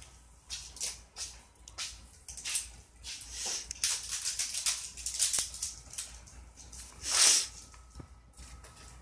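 Plastic toy packaging and wrappers rustling and crinkling, with small clicks and rattles as toys are handled. The strokes are short and irregular, with one louder rustle about seven seconds in.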